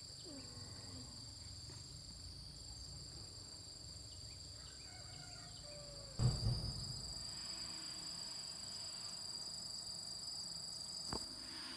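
Insects droning in a steady high pitch, with a brief low thump about halfway through and a sharp click near the end.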